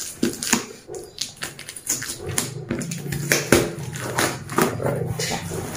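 Cardboard box flaps and loose plastic packing tape rustling and crinkling as a carton is pulled open by hand, in many short crackles. A low steady hum joins from about two seconds in.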